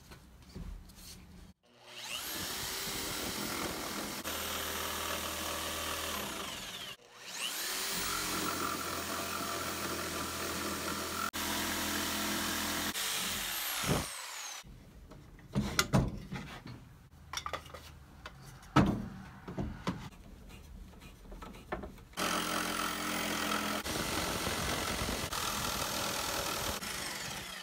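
Jigsaw cutting the curved outline of an axe handle from a 4/4 hickory board, in three runs of about five seconds each. The motor's whine rises as each run starts and falls away at the end of the second. Between the second and third runs come a few knocks.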